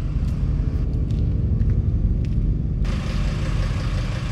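Camper van's engine running as the van creeps forward, a steady low rumble that comes in suddenly at the start.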